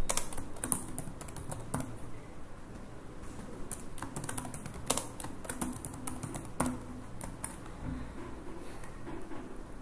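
Typing on a computer keyboard: irregular key clicks with short pauses between bursts.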